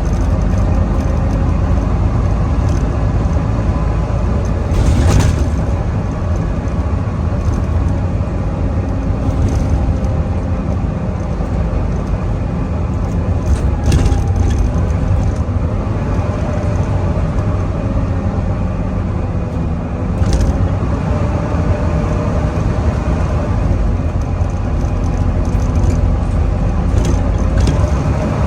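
Volvo B9TL double-decker bus heard on board, driven hard: a deep engine rumble with a whine that slowly rises and falls, the 'hoover' sound. A few sharp knocks and rattles from the bus body come through, around five, fourteen and twenty seconds in.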